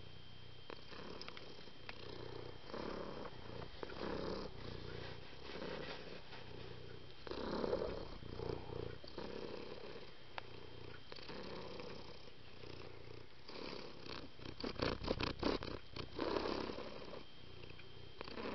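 Cat purring, a low rumble that swells and fades with each breath about once a second. A quick run of sharp clicks comes about three-quarters of the way through.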